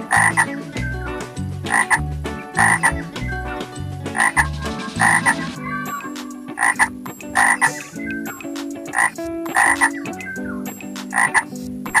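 Frogs croaking: about a dozen short, sharp calls at irregular intervals, roughly one a second.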